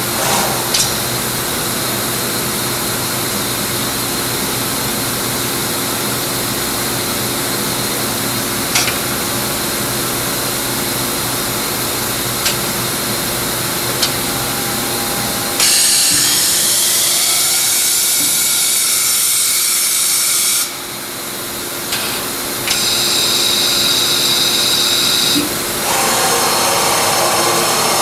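Hwacheon D2-5AX five-axis machining centre with its 8-station automatic workpiece changer in operation: a steady machine hum with a few sharp clicks, then, about halfway through, a loud hiss that starts and stops abruptly and lasts about five seconds, with a rising whine under it. Two shorter hissing stretches follow near the end.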